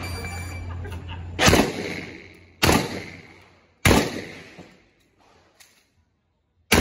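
A shot timer beeps, then a pump-action shotgun fires three shots about 1.2 seconds apart, each trailing off in echo. The string pauses for nearly three seconds, and a fourth shot comes at the very end.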